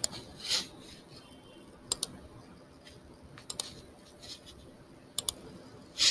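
Computer mouse clicking: sharp paired clicks, a press and release, about every one and a half to two seconds, with two short soft rustles between them.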